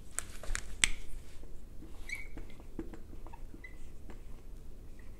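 Whiteboard marker handled and then writing on the board: a few light clicks and taps, then short, faint squeaks of the felt tip on the whiteboard.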